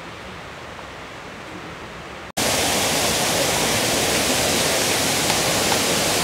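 Faint steady background hiss, then about two seconds in an abrupt switch to the loud, steady rush of water from a small waterfall on a stream.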